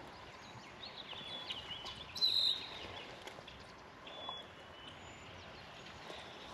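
Faint outdoor ambience with small birds calling: scattered high chirps and one brief, louder high call about two seconds in.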